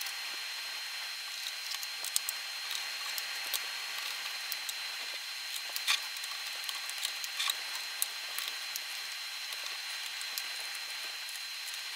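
Sped-up sound of screws being taken out of a graphics card's backplate with a small screwdriver: scattered quick clicks and taps over a steady hiss with a thin high whine.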